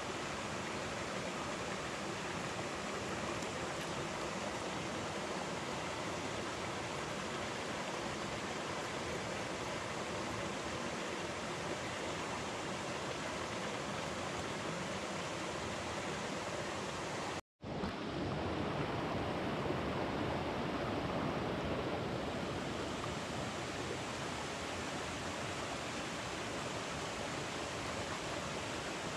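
Shallow river water rushing steadily over rocks. About two-thirds of the way through it cuts out to silence for a split second, then returns slightly louder.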